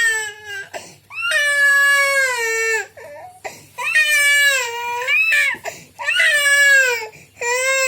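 Baby crying loudly in a run of long, high wails, about four cries of a second or more each, with short catches of breath between them.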